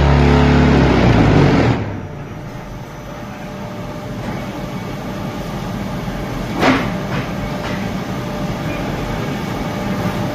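Hawen QT10-15 concrete block-making machine: its vibration table runs with a loud, heavy hum, then cuts off suddenly about two seconds in as the compaction stage ends. The machine then runs on more quietly with a steady hydraulic hum while the freshly formed blocks are pushed out, and a single metallic clank comes about seven seconds in.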